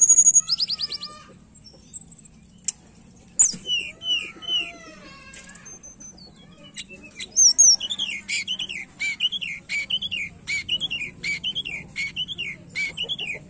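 Tledekan gunung (blue flycatcher) singing. A fast trill comes first, then varied whistled phrases, and from about seven seconds in a long run of the same down-slurred note repeated about twice a second.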